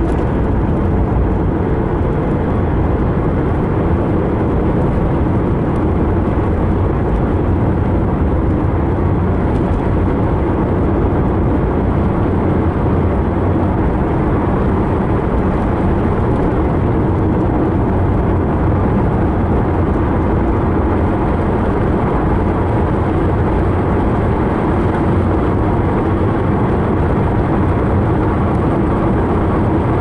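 Steady road and engine noise inside a moving car's cabin, the car cruising along an open highway with an even, unchanging drone.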